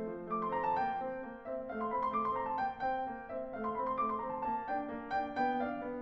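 Background piano music playing flowing runs of quick notes.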